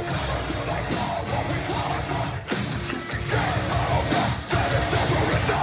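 Metalcore band playing live through a concert venue's PA, heard from within the crowd: heavy distorted guitars and drums at full volume, with a few very short stop-start breaks.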